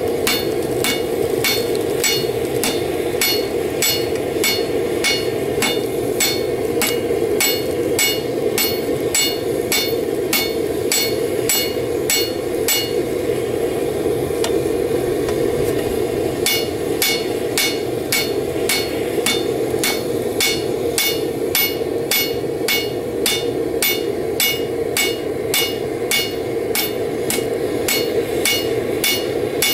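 Ball-peen hammer forging hot steel on a railroad-rail anvil: steady blows about two a second, each with a short metallic ring. The blows pause for a few seconds around the middle and then resume, over a steady rushing background.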